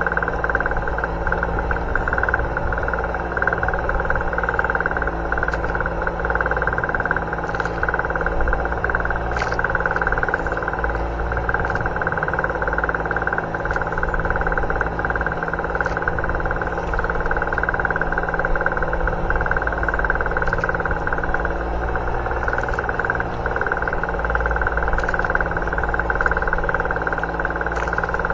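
Boat engine running steadily, an even mechanical drone with no change in speed.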